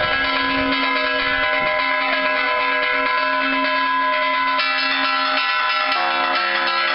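Church bells rung by hand in the belfry, with several bell tones overlapping in continuous ringing. The mix of tones changes with fresh strokes about four and a half seconds in and again about six seconds in.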